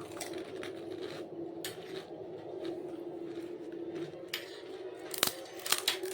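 Dishes and cutlery clinking, with a few sharp clicks near the end, over a steady low hum.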